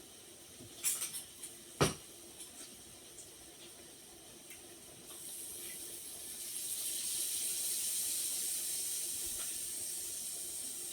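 A sharp knock about two seconds in, then from about five seconds a hiss that builds and holds steady: food cooking and hissing in the hot pot.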